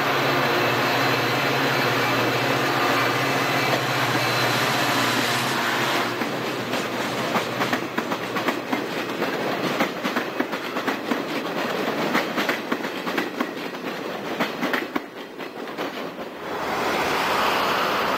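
A diesel-hauled Amtrak passenger train passing close below. The locomotive's engine drones steadily at first, then from about six seconds in the cars go by with a long run of rapid clickety-clack from the wheels over rail joints. Near the end the sound changes to a steady rushing noise.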